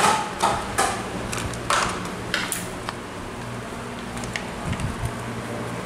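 Hands handling a throttle cable and the plastic engine housing: a few short scraping rustles in the first couple of seconds, then light clicks, over a steady low hum.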